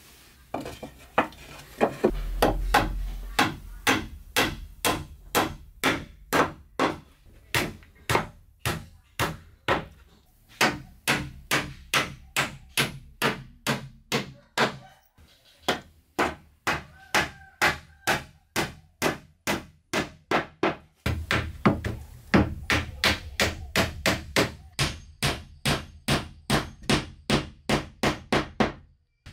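Hammer blows on wood, struck steadily about two to three times a second, with a short pause about halfway through.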